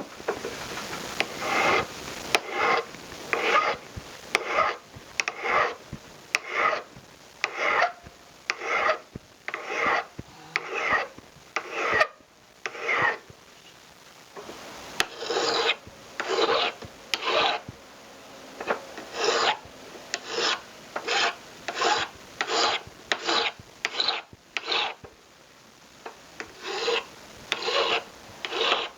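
Hand file working a silver ring blank to shape, with steady back-and-forth strokes about one to two a second and a brief pause about halfway through.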